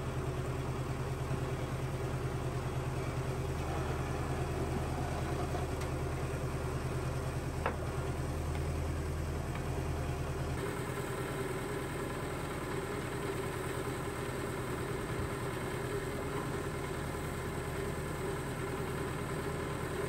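Diesel engine of a tractor-based backhoe loader running steadily while the bucket digs a trench. There is a brief rising squeak about eight seconds in. The deep rumble lessens about ten seconds in.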